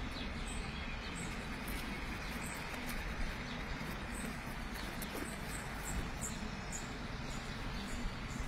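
Steady rushing of the fast-flowing Aare river, with a bird chirping repeatedly in short, high notes over it.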